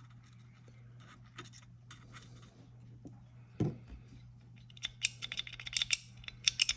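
Small metal parts of an AR-15 lower receiver being handled and worked: light scratching and scattered clicks, a single soft knock about halfway, then a quick run of sharp metallic clicks near the end.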